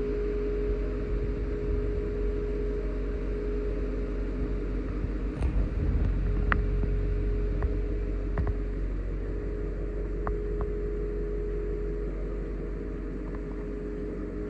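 A steady low mechanical hum with a constant mid-pitched tone running underneath. A few light clicks and knocks come in the middle.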